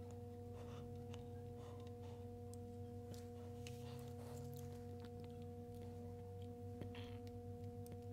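Quiet background music: a sustained drone chord of steady tones, with faint small clicks over it.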